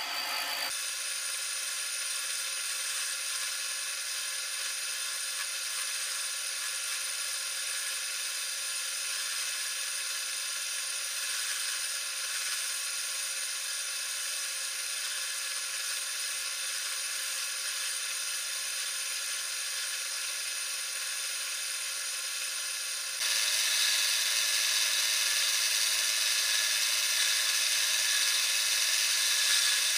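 Electric wood lathe running steadily with a whirring hum. About 23 s in it grows louder and hissier as a tool is held against the spinning wood.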